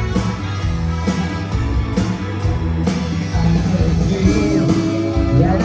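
Live rock band playing an instrumental passage: electric guitar, bass guitar, drums and keyboard, with a steady drum beat of about two strikes a second.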